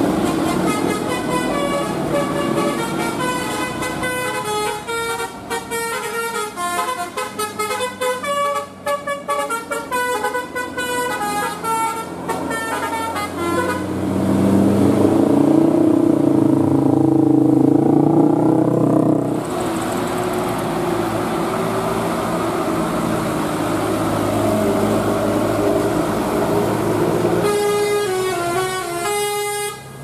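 A tour bus's telolet musical air horn plays a quick tune of short stepped notes for about the first half. Then comes a louder low drone with a rising and falling pitch, the engine of a passing bus, followed by steady engine and traffic noise. Another telolet tune starts near the end.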